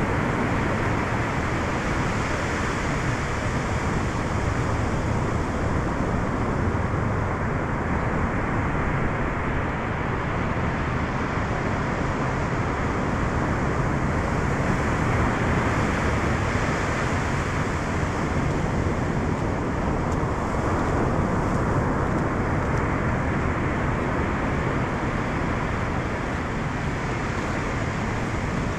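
Steady rush of ocean surf breaking offshore and washing up a sandy beach.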